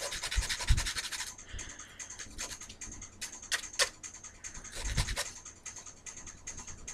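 A small file scraping the pointed tip of a bamboo skewer to smooth it. Quick back-and-forth scratching for about the first second, then scattered single strokes with a couple of light knocks.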